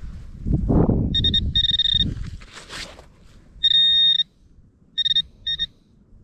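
Metal detector sounding on a target: a string of short high beeps, with one longer held beep about halfway through. Before the beeps, for about two seconds, there is loud low scuffing and rustling.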